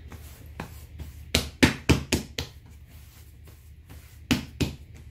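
Soft challah dough being kneaded by hand on a wooden countertop, giving a series of knocks and thuds as it is pushed and pressed against the wood. About five come in quick succession early on, then two more near the end.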